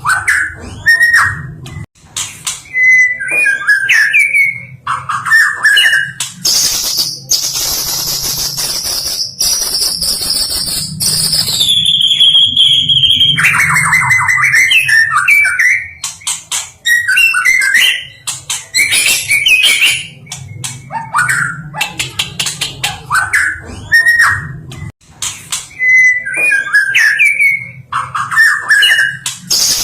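White-rumped shama singing a long, varied song: loud whistled phrases, rapid chattering runs and harsh buzzy notes, with one long whistle falling in pitch about eleven seconds in. A steady low hum runs underneath.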